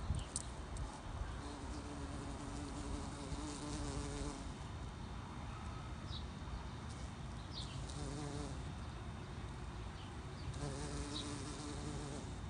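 Bumblebee buzzing as it flies among flowers, its low hum coming and going: about a second and a half in for some three seconds, then again briefly twice near the end. A low steady rumble runs underneath.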